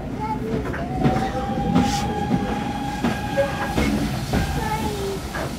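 Heritage railway passenger carriage running, heard from inside: a steady low rumble with scattered wheel clicks over rail joints. A thin steady squeal comes in about a second in and lasts about three seconds.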